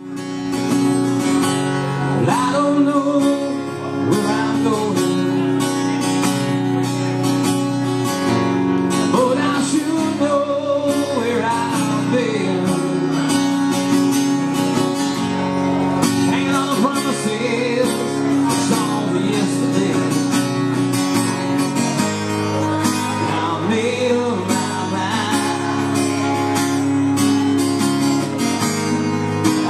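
Live acoustic guitars playing together, steady strummed chords with a melody line gliding over them.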